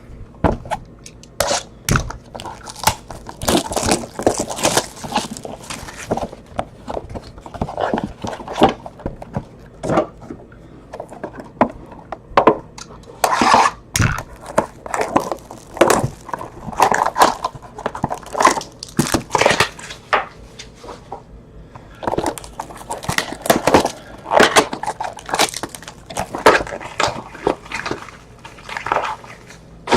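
Trading cards and their plastic packaging being handled: irregular crinkling, rustling and light clicks.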